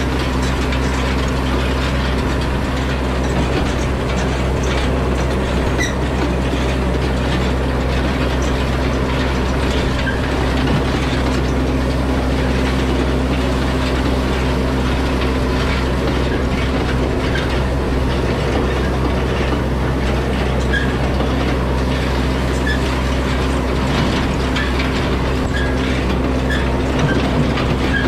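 Yanmar tractor's diesel engine running steadily while towing, with the continuous rattle and clatter of an antique side-delivery hay rake's reel and tines turning behind it, and scattered small clicks.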